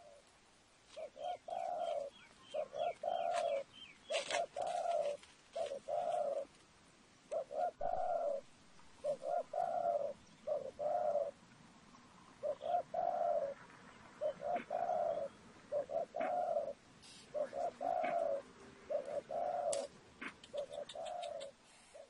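A dove cooing: a long series of low, hollow coos, mostly in pairs about half a second apart, the pairs repeating every second or so with a short pause near the middle. Faint scratching and rustling sounds come and go between the coos.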